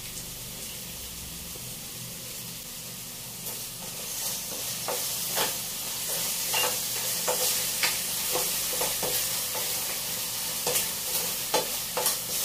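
Mushrooms sizzling in a stainless steel frying pan as oyster sauce goes in. From about three and a half seconds in, a spatula scrapes and clinks irregularly against the pan as they are stir-fried.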